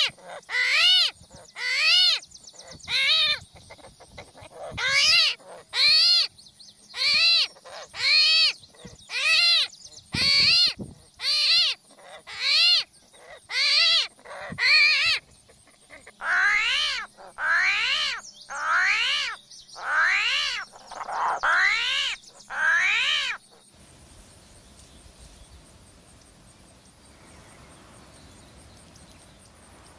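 A series of about twenty loud animal calls, roughly one a second, each a short note that rises and falls in pitch. The calls stop about 23 seconds in, leaving a faint hiss.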